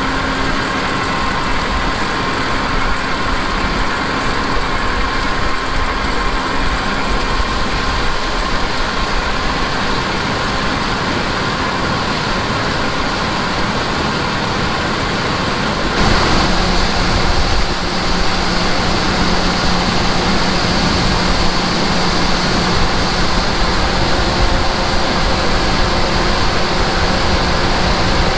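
Heavy farm machinery running steadily, a dense mechanical drone with engine hum. About halfway through it gets slightly louder and a new steady low hum comes in.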